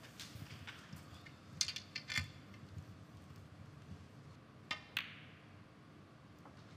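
Snooker balls clicking: several sharp clicks about two seconds in and another pair about five seconds in, the later ones with a short echo.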